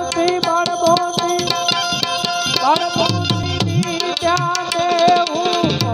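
Harmonium playing a melody in steady held notes over a quick, regular hand-drum rhythm, accompanying a Hindu devotional bhajan.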